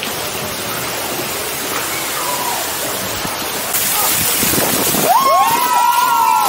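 Steady rush of falling and splashing water, getting louder about four seconds in. From about five seconds in, a person's voice gives long drawn-out shouts over it.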